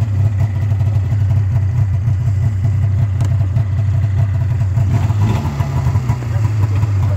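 Air-cooled two-stroke engine of a Polaris snowmobile idling steadily, with a slight dip in its note a little past halfway.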